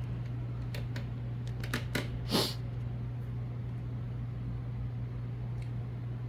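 A steady low hum runs throughout, with a few light clicks in the first two seconds and a short hiss about two and a half seconds in.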